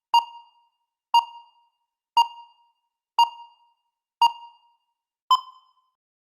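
Electronic countdown beeps: six short pips, one a second, each fading quickly, the last a little higher in pitch.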